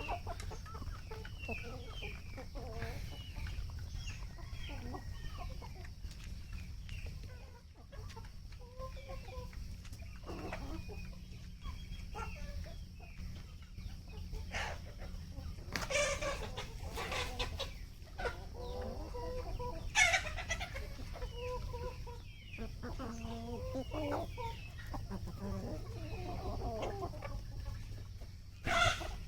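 A flock of desi chickens clucking and calling over one another, with a few louder squawks about halfway through and near the end.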